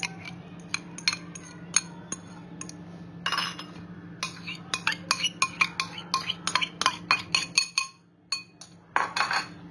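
Spoon clinking and scraping against a glass bowl as thick whisked yogurt is scraped out into a bowl. There are a few scattered clinks, a short scrape, then a quick run of clinks and taps in the middle, with two more near the end.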